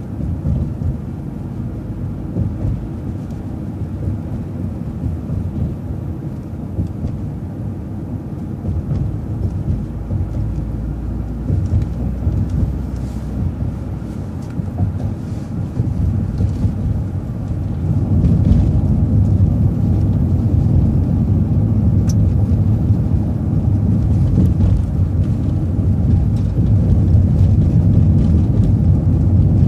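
Low, steady rumble of a city bus's engine and road noise heard from inside the vehicle, growing louder a little past halfway as it gets under way again.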